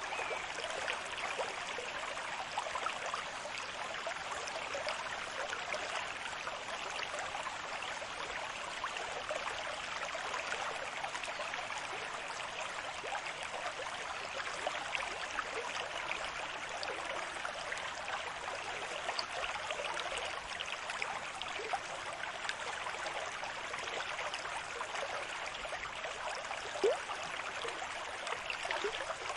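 Running water: a steady rush of splashing and trickling that stays at one even level, without the slow rise and fall of breaking waves. One brief louder splash comes near the end.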